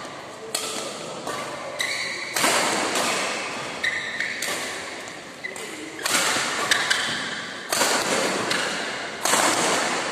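Badminton rackets smashing and driving a shuttlecock back and forth in a fast doubles rally. There are sharp hits at irregular intervals, roughly a second apart, each ringing on in the hall's echo.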